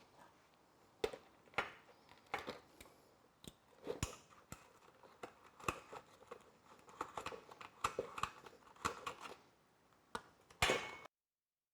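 Irregular sharp clicks and light knocks of hand tools and small hard parts being handled, about a dozen over ten seconds, with the loudest near the end before the sound cuts off abruptly.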